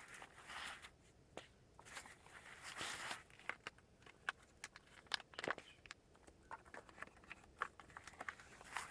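Rustling and crackling, with a quick series of sharp clicks and snaps around the middle.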